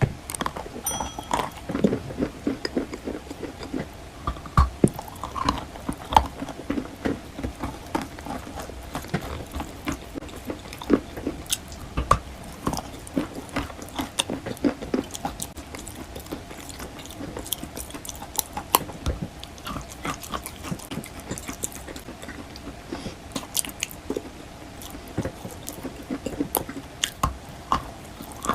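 Wet white chalk being bitten and chewed, making many irregular crunches and crackles.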